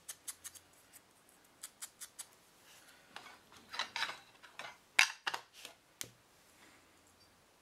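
Scattered light clicks, taps and short rustles of small paper-craft items handled on a tabletop, as an ink blending tool is worked on a small label's edges and put down and the label is lifted.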